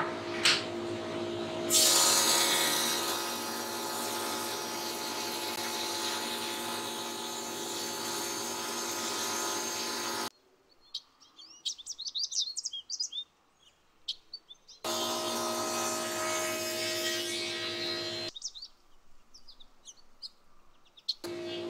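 JET jointer-planer running with a steady hum; about two seconds in a board is fed over the cutterhead, a loud cutting rush that slowly fades. Twice the machine sound cuts out abruptly, leaving a quiet space with birds chirping, then comes back.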